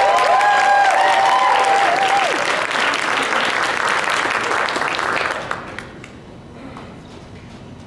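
Audience applauding, with a few held cheers over the clapping for the first couple of seconds; the applause dies away about five and a half seconds in.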